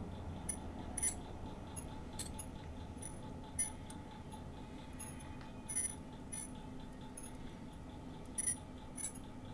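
Faint, irregular small clicks from a pin vise hand drill being slowly twisted through a tiny piece of plastic, over a steady low hum.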